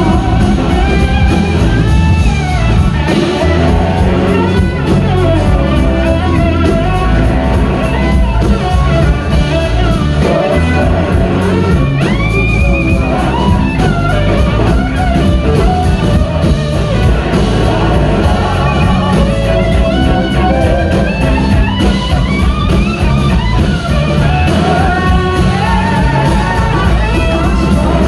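A live rock band playing loud through a PA, heard from within the audience. An electric guitar plays a lead with gliding notes over bass and drums.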